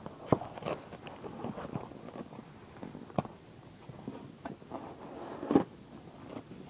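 A taped package being opened by hand: irregular rustling and scraping of packaging and tape, with a few sharp clicks among it.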